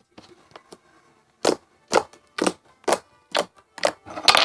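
Hand-kneaded slime squished and poked, giving a run of sharp, wet popping clicks about two a second as air pockets in it burst, after a few faint crackles.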